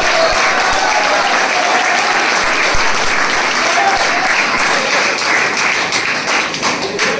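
A group of people applauding: steady, dense clapping throughout.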